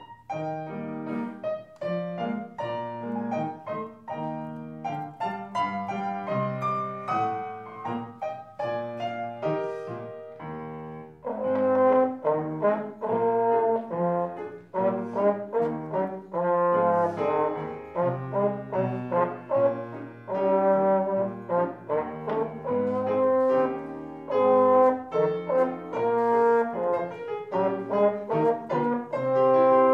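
Slide trombone playing a solo melody with piano accompaniment. The playing grows louder and brighter about eleven seconds in.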